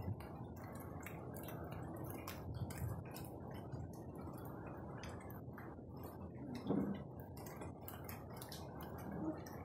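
Steady rain falling, with close water drops ticking irregularly. There is one brief low thump about seven seconds in.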